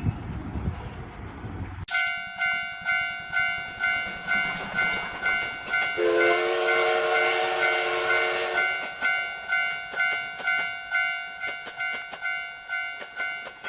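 Japanese railroad crossing warning bell ringing in a steady two-strokes-a-second clang, after a low train rumble that cuts off abruptly about two seconds in. A few seconds later a train horn sounds a steady chord for about two and a half seconds over the noise of the passing train, while the crossing bell keeps ringing.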